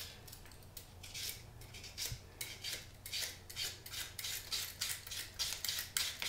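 Flat vegetable peeler shaving thin slices off a fennel bulb, with rasping strokes about twice a second.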